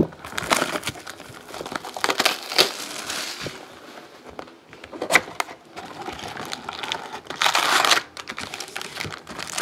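Plastic shrink-wrap being torn off a sealed Topps Platinum trading-card box and crinkled, then the box opened and the foil packs handled: irregular bursts of crinkling and tearing, loudest near the end, with a sharp tick about five seconds in.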